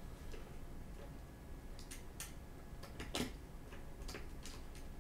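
Faint, scattered clicks and taps of a small screwdriver and tiny screws against the metal M.2 heatsink cover as it is refitted to a motherboard, about seven ticks, the loudest a little past three seconds in.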